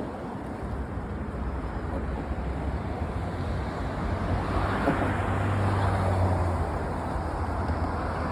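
A steady low motor hum under a broad rushing noise that swells a little midway.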